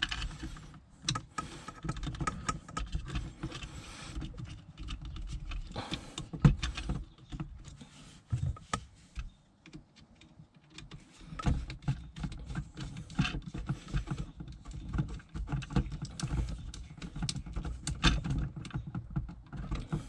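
Irregular small clicks, taps and rustles of hands working an electrical outlet and its plastic box, including a screwdriver turning the outlet's terminal screws while wires are pushed into place.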